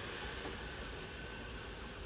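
Tobu Spacia limited express train approaching, a faint, steady rumble and hiss of it running along the track.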